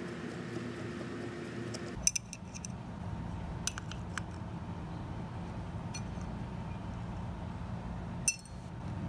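A few small metallic clicks and clinks from a screwdriver working apart the float-needle assembly of an S&S Super E carburetor, with a sharper click near the end, over a steady low hum.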